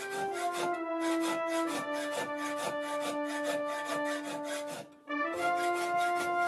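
A sen, a hand-pushed steel scraper, shaving a forged knife blade in repeated scraping strokes, over background music with sustained notes. Both drop out briefly about five seconds in.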